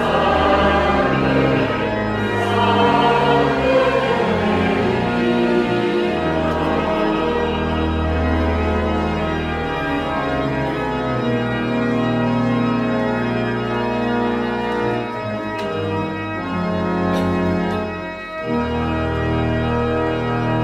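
Church organ playing slow, held chords at the close of a hymn. The congregation's singing trails off in the first few seconds, and the organ breaks off briefly near the end before sounding a new chord.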